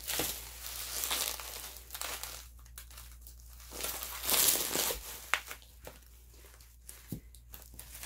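Plastic packaging crinkling and rustling in bursts as albums are worked out of a shipping box, loudest about four seconds in, with a couple of light knocks later on.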